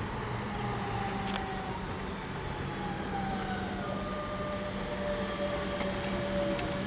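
DB Class 425 electric multiple unit approaching and slowing, its traction motors whining in several tones that fall slowly in pitch over a steady low hum.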